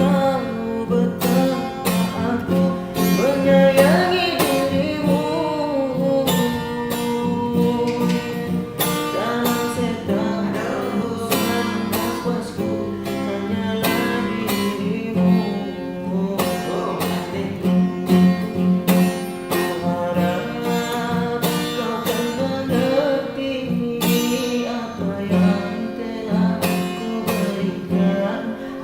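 A high-school student singing a melody over a strummed guitar.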